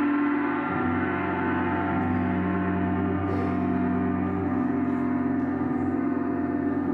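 Jupiter gong, a planetary gong tuned to Jupiter, ringing in a sustained wash of many steady overtones at an even level, with no separate strike standing out.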